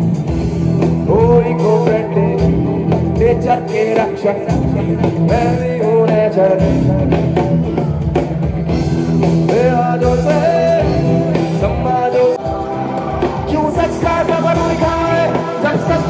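Live band music over a concert PA: a singing voice carries a melody over bass, guitar and a steady drumbeat.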